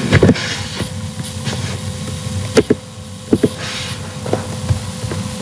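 Scattered sharp clicks of computer keyboard keys and a mouse, several in quick pairs, over a steady low rumble and a faint hum.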